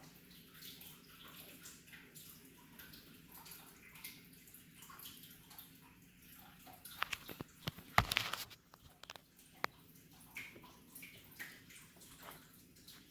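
Turtles feeding in shallow tank water: faint splashing and sloshing, with a cluster of sharp clicks and knocks about seven to eight seconds in, the loudest about eight seconds in.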